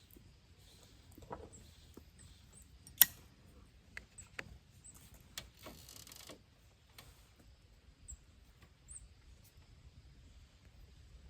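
A sharp click about three seconds in, then a few softer clicks and a short rasping noise, from small objects being handled close by. Brief, high bird chirps come now and then.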